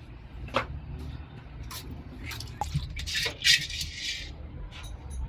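Small metal clicks and taps, with a louder scraping rattle about three seconds in, as parts of a tractor's diesel injection pump are handled and fitted by hand. A steady low hum runs underneath.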